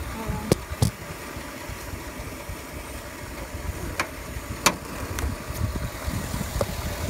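A 2011 Chevy Silverado's 5.3-liter V8 idling steadily, with a few sharp clicks and knocks from hands working the grille and hood latch, the loudest about four and a half seconds in.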